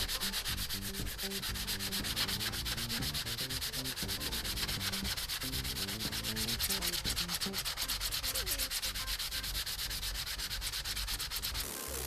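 A 150-grit sanding sponge rubbed quickly back and forth over hardened body filler on a 3D-printed plastic RC car body, in an even stroking rhythm. This is the rasp of the filler being sanded down flush with the body at the joints.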